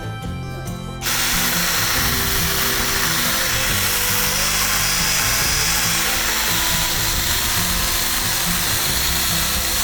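Chainsaw starting up about a second in and running steadily as it cuts into a pumpkin.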